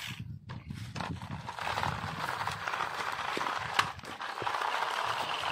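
Remote-control toy car driving over sandy, gravelly ground: its small electric motor and plastic wheels make a steady rough rattling noise from about a second and a half in, with a sharp click near the middle.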